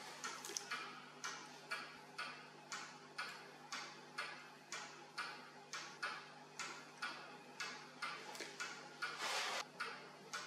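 Steady mechanical ticking, about two even ticks a second, over a faint hum. A brief scraping rustle comes about nine seconds in.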